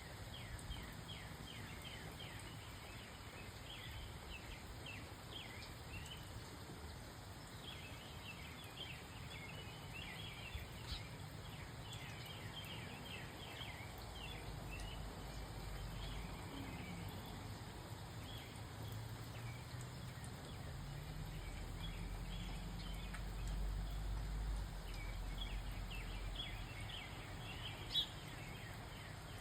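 Many small birds chirping in quick, overlapping short calls over a low steady rumble that grows somewhat louder in the second half, with one sharp click near the end.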